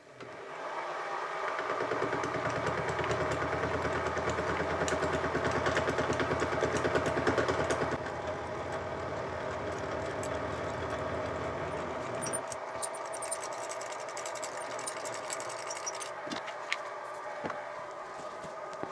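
Sieg SX2P mini milling machine running with an indexable face mill cutting across an aluminium block, a steady motor whine with a fast chatter of the cut. The sound gets a little quieter about eight seconds in and loses its low rumble a few seconds later.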